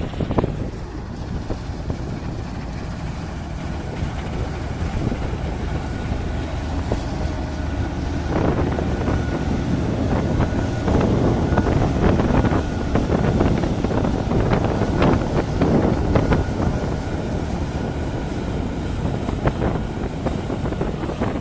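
Heavy farm machinery engine running steadily under load, with wind buffeting the microphone. A thin steady whine joins it partway through, and the machine gets louder about eight seconds in.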